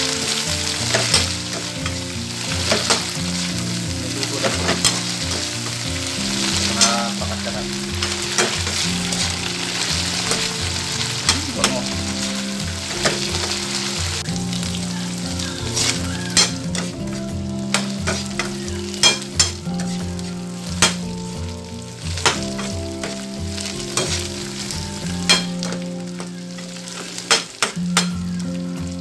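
Sliced bitter gourd frying with shrimp paste in an oiled wok, sizzling steadily, while a metal spatula stirs it with frequent sharp clinks and scrapes against the pan.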